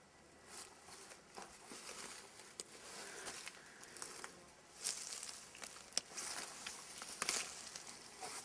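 Faint footsteps and rustling through forest undergrowth: irregular crunches and crackles, with a few sharper clicks about five, six and seven seconds in.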